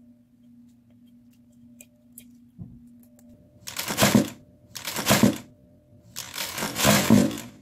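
Plastic carrier bag rustling and crinkling in three loud bursts about a second apart as a slime tub is pushed into it. Before that, a few faint clicks and a soft thump.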